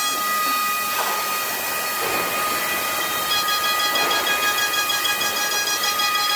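High-speed CNC router spindle whining steadily while cutting, with a continuous hiss of cutting noise that swells a few times.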